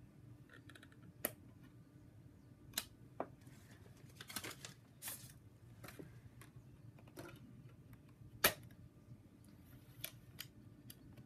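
Scattered small clicks and taps from swapping install CDs in an iBook G3's optical drive tray, with a cluster of rustling clicks about four to five seconds in and the loudest snap about eight and a half seconds in, over a faint steady hum.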